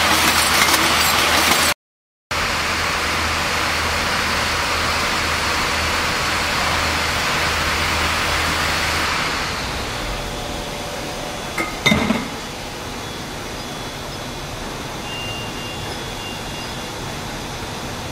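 Aerosol can making line machinery running in a factory hall: a loud, steady mechanical din that breaks off for a moment about two seconds in, then drops to a quieter steady hum about ten seconds in. A couple of short metal clinks come just before twelve seconds.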